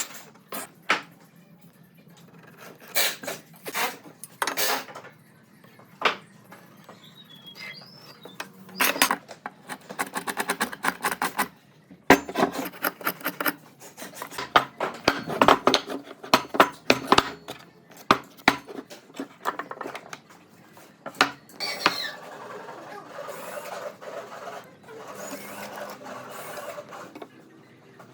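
Wooden pieces and hand tools being worked and handled: irregular knocks, taps and clatter, with a run of rapid clicks and knocks about halfway through and a softer scraping near the end.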